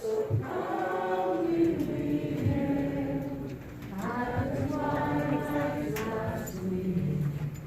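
A group of voices singing without accompaniment, in long held notes.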